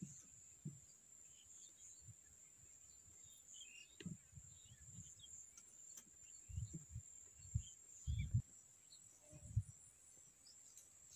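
Forest ambience: a steady high-pitched drone of insects, with scattered short bird chirps. A few soft low thumps come in the second half.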